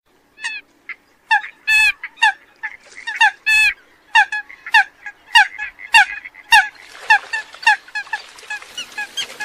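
Eurasian coots calling: a fast series of short, sharp calls, about two a second, each sliding down in pitch, with a couple of longer held notes among them. From about seven seconds in, more calls overlap over a rising background hiss.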